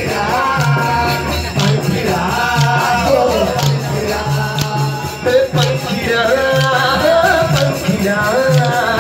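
Live devotional band music for a garba song: a melody over a steady drum beat of about two strokes a second, with jingling percussion.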